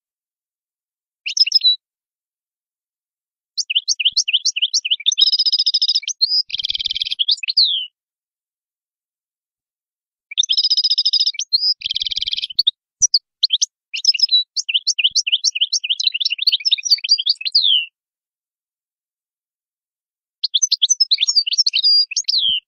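European goldfinch singing: phrases of rapid, falling twittering notes, two of them holding a drawn-out buzzy note, separated by pauses of a few seconds.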